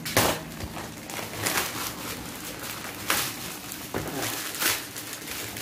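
Wrapping paper being torn off a gift and rustled by hand: a series of short, irregular rips and crinkles.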